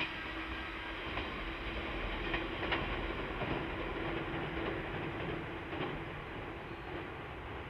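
Electric passenger train running away onto a steel truss bridge: a steady wheel-and-rail rumble with a faint motor hum, a few sharp clacks of wheels over rail joints, slowly fading as it recedes.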